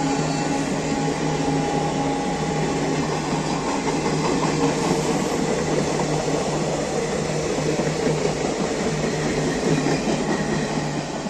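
A passing train running steadily, its wheels and coaches making a loud, even rumble with a steady low hum underneath.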